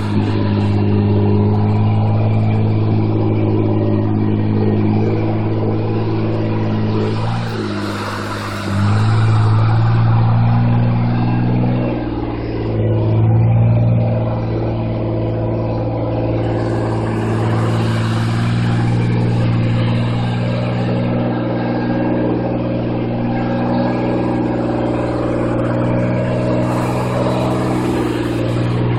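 Car driving along at speed, its engine running with a steady low drone, with tyre and wind noise rushing past the microphone held outside the car. The engine note dips and picks up again twice, about 8 and 12 seconds in.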